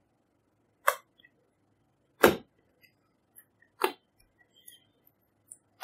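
Glossy slime being squeezed and folded by hand, giving four sharp pops, the loudest about two seconds in, with faint small crackles between them.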